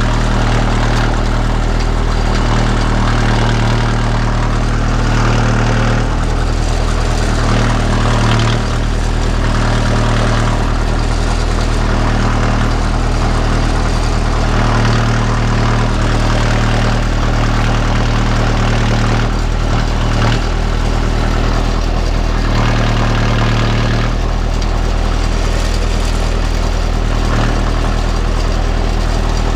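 A 45 hp utility tractor's diesel engine running steadily close up while it powers the front-end loader, its note swelling slightly every few seconds.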